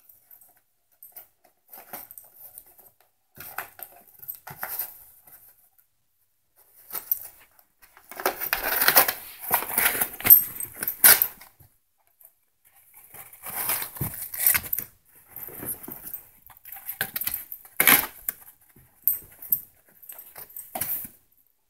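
A dog biting and chewing a tube-shaped roller, making irregular noisy bursts of gnawing and scuffling. The bursts are sparse at first, busiest about eight to eleven seconds in, and pick up again from about thirteen to eighteen seconds in.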